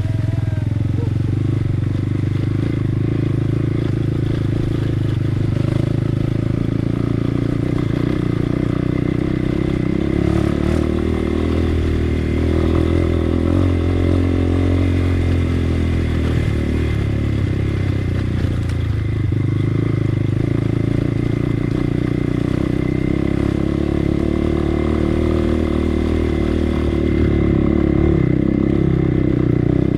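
Motorcycle engine running under throttle while being ridden, its pitch rising and falling around the middle.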